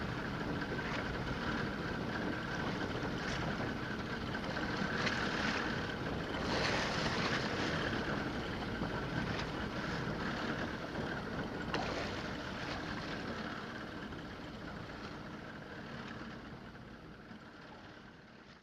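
Steady noise of a fishing boat at sea: a low engine hum under wind and water sound, easing down over the last few seconds.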